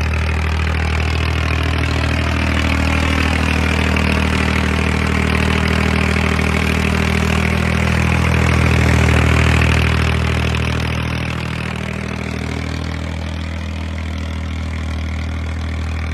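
Massey Ferguson 135 tractor engine running steadily while pulling a plough. It grows louder around nine seconds in, then eases off a couple of seconds later.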